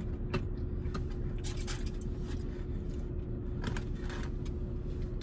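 Plastic forks and takeout containers clicking and rustling a few times, over the car's steady low hum inside the cabin.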